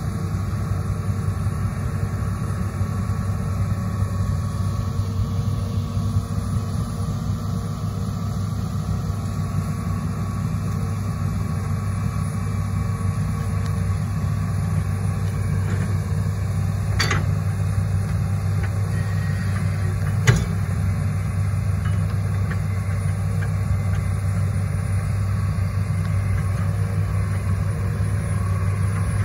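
Diesel engine of a Hitachi ZX210 amphibious excavator running steadily under load as the machine crawls up a bank on its pontoon tracks. Two sharp knocks, about three seconds apart, stand out past the halfway point.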